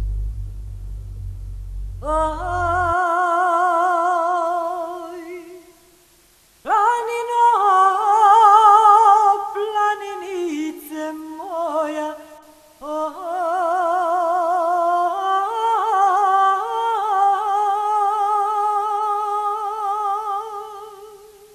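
A solo voice singing unaccompanied in several phrases of long held notes with a wide, wavering vibrato. For the first few seconds a truck engine rumbles low underneath, then cuts off.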